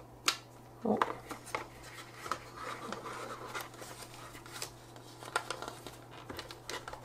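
Stiff black plastic packaging tray handled as a headphone cable is pulled out of its moulded slots: scattered sharp plastic clicks and light rustling, with one loud click just after the start.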